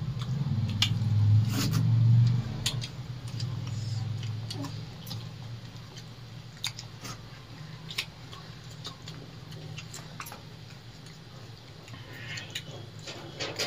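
People eating rice and curry with their hands from steel plates: scattered short clicks and smacks of fingers scraping the plates, and chewing. Under it runs a steady low hum, louder in the first two or three seconds.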